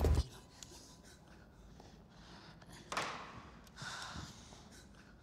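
A loud low rumble cuts off suddenly just after the start, leaving quiet room tone. Two soft breaths break it, about three and four seconds in.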